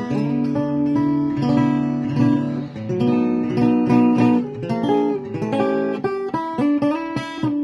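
1950s Joseph Rossmeisl archtop jazz guitar strummed through a run of chords, held and changed at first, then played as short quick chord strokes near the end.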